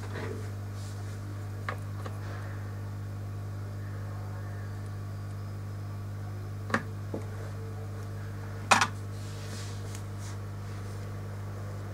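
A steady low electrical hum with a few sharp clicks: a faint one about two seconds in, another near the middle, and a louder double click later on.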